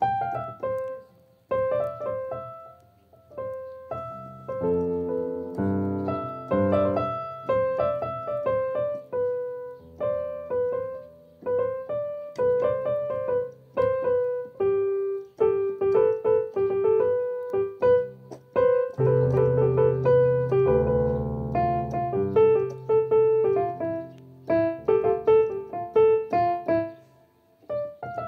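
Keyboard played with a piano sound by a beginner: a simple melody of single notes over held low bass notes and chords, which are fullest about two-thirds of the way through.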